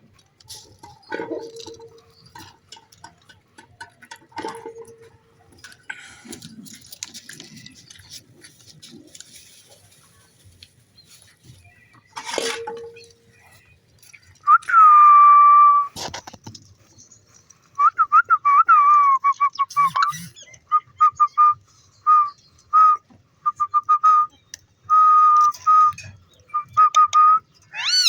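Whistling: after a few faint knocks, one long whistled note that falls slightly at its end, then a long run of short whistled notes on one pitch in quick succession.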